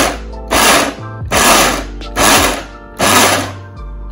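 Countertop blender pulsed in short bursts of about half a second each, a little under one a second, rough-chopping chunks of pepper, onion and carrot; it stops near the end.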